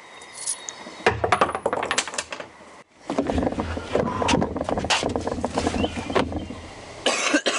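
Rapid clinking and clattering of small hard pieces, starting about a second in and going on in quick irregular strikes.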